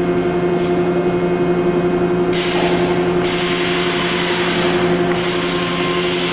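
Steady machine hum from a Ritter R1200 hydraulic door clamp, with a short burst of hissing just after half a second in and a longer hiss from about two and a half to five seconds in.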